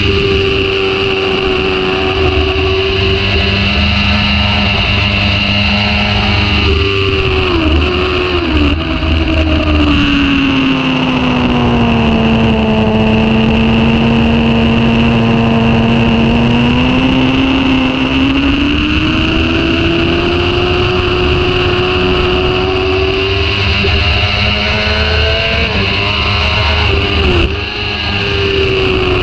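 Sport motorcycle engine running hard at track pace over steady wind rush. Its pitch holds high, drops as the rider shifts down about seven seconds in, stays lower through the middle, then climbs steadily back up, with a short dip from a gear change near the end.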